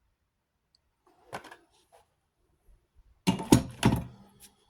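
Handling noise: a light knock about a second in, then a short cluster of louder knocks and thumps a little past three seconds.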